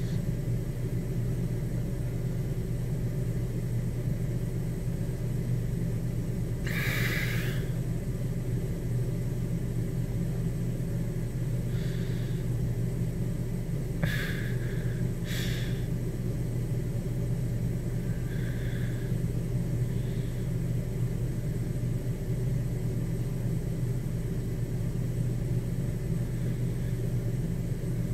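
A steady low drone that does not change in level, with a few brief, faint higher-pitched sounds scattered through it; no thunderclap or rolling thunder stands out.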